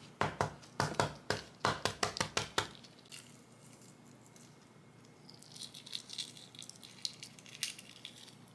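Hard-boiled eggs and ice clinking and knocking in a bowl of ice water: about a dozen quick sharp knocks in the first few seconds, then fainter light clicking later on.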